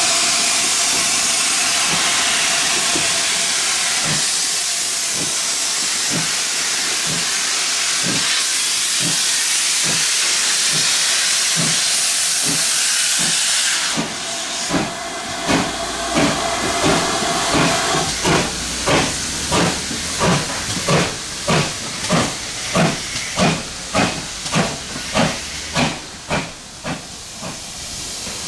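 Steam locomotive starting away: a loud hiss of steam over slow exhaust beats, which stops suddenly about halfway. After that the exhaust beats come clear and quicken to about two a second, fading a little near the end.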